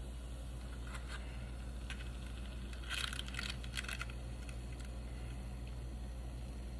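Kitchen utensils handling a freshly fried taco shell as it is drained and lifted out of the frying oil: a few faint clicks, then a short burst of scraping and rattling about three seconds in, over a steady low hum.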